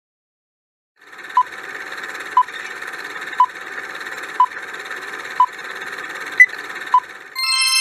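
Quiz countdown-timer sound effect: after about a second of silence, a steady hiss with a short sharp beep about once a second, then a bright chime starts near the end as time runs out.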